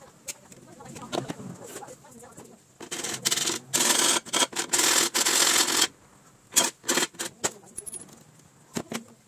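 Metal hand tool working on fittings inside a plywood box: sharp clicks and knocks of metal on wood and metal, with a louder, noisy stretch of about three seconds in the middle, broken twice.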